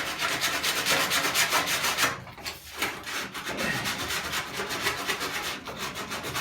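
Abrasive pad sanding the Mini's steel body panels to clean them back to bare metal for spot welding: a fast, even rasping rub of many strokes a second that breaks off about two seconds in, then carries on less evenly.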